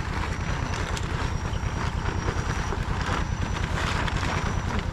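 Small motorboat engine running steadily under way, a rapid low throb, with rushing wind noise on the microphone.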